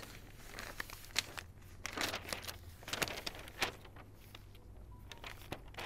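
Faint handling noises: scattered light clicks and brief rustles, over a steady low electrical hum.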